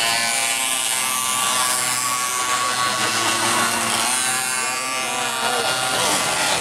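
Several mini racing motorbikes buzzing at high revs as they ride through the bend, their engine pitch rising and falling.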